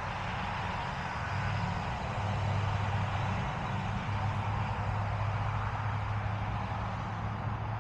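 Motor vehicle engine, a steady low hum that grows louder about two seconds in and holds.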